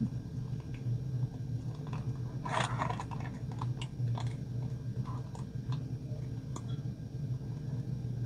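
A small plastic bag crinkling and rustling as fingers pick at it, with scattered light crackles and a louder crinkle about two and a half seconds in, over a steady low hum.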